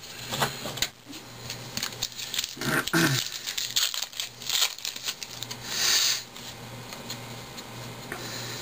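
Foil wrapper of a baseball card pack crinkling and tearing as it is opened and the cards are handled, with a louder crackle of the foil about six seconds in.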